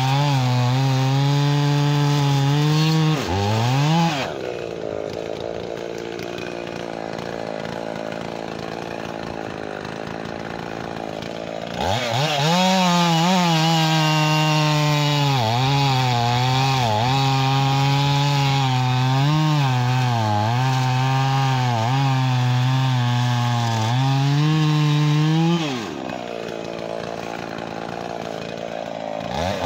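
Two-stroke chainsaw cutting through a log, its engine pitch dipping and recovering as the chain loads in the wood. About four seconds in it revs briefly and drops to idle, then revs back up at about twelve seconds and cuts again for about thirteen seconds, drops to idle once more, and revs up again just before the end.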